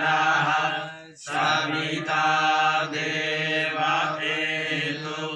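A group of men chanting a Sanskrit mantra in unison on a steady recitation pitch, with a brief break about a second in.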